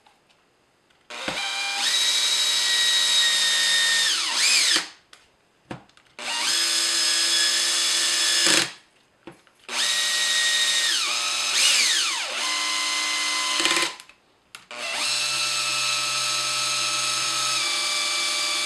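18-volt cordless drill with a 2.5 mm hex driver bit running screws into an RC truck chassis at its lowest speed setting. Four separate runs of a steady motor whine, each about two to four seconds long, the pitch sliding down as the motor stops.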